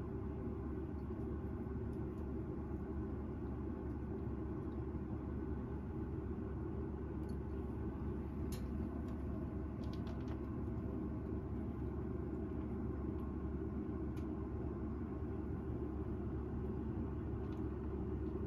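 Steady low rumbling background noise, with a few faint clicks about halfway through.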